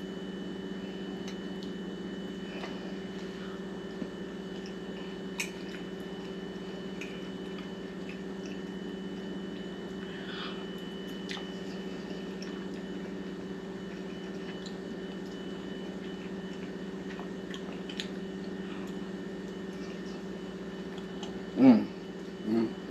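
A person chewing a mouthful of chicken fajita pasta, with a few faint clicks, over a steady low hum. Near the end come two brief vocal sounds, the first the loudest thing here.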